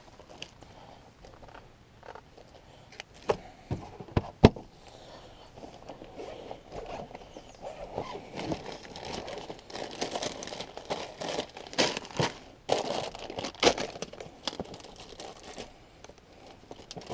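Rummaging inside a van: a few sharp knocks and bumps, then a longer spell of plastic bag crinkling and rustling with quick clicks in the middle and later part.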